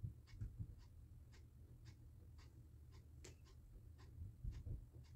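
Eyebrow pencil being stroked across the brow: faint, short scratchy strokes, about two a second.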